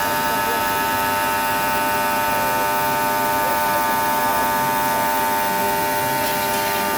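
Motors of a CNC stone-cutting machine running with a steady electric hum, several unchanging pitches held together.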